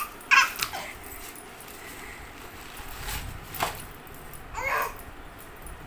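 A baby's short excited squeals, once about half a second in and again near the end, with a single sharp snap a little past halfway.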